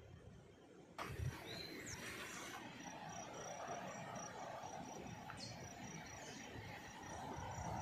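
Outdoor ambience that starts abruptly about a second in: an insect calling in an evenly pulsed high note, a few short bird chirps, and a steady background hiss.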